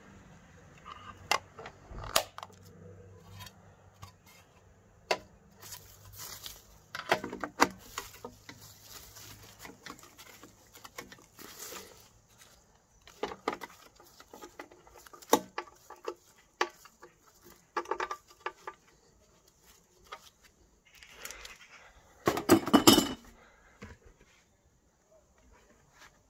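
Irregular clicks, knocks and rustling from handling and movement close to the microphone, with a louder rustling burst near the end.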